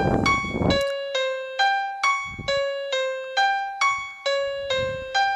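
Rap backing beat: a simple piano-like keyboard melody of single notes, about two a second, alternating between two pitches. A short burst of noise sits in the first second, and faint low thumps come twice later.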